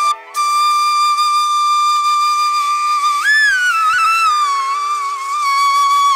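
Background music: a flute holds one long note, bends up and wavers about three seconds in, then settles back, over a steady drone.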